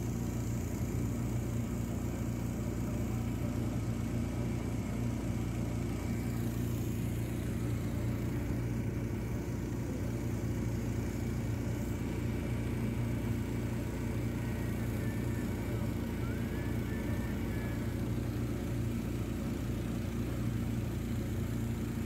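Motorboat engine running steadily at an even pitch while the boat is under way.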